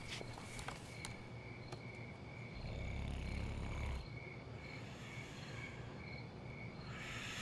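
Crickets chirping steadily, about two chirps a second, with a sleeper's low snore from about two and a half to four seconds in.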